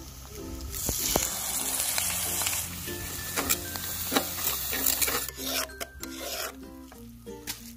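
Metal spatula scraping and stirring chopped vegetables on a hot cast-iron tawa, with a frying sizzle that is loudest for about two seconds near the start. Background music plays underneath.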